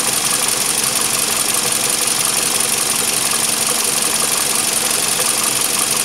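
Toyota 2AZ-FE 2.4-litre four-cylinder engine running steadily, with a constant hiss over it.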